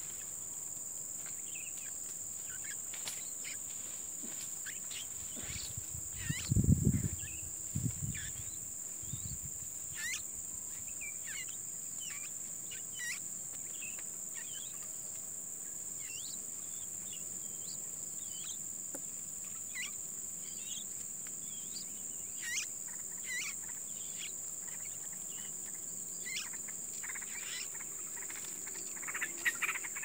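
A steady high-pitched insect drone, with short bird chirps scattered throughout and a quick run of chirps near the end. A few low thumps about six to eight seconds in are the loudest sound.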